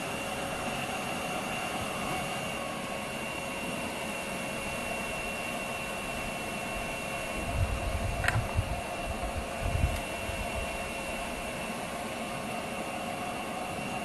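Electric blower running steadily with a whine, forcing air through a steel pipe into a charcoal-fired furnace that is melting aluminium. Low thumps and a sharp click come between about seven and ten seconds in.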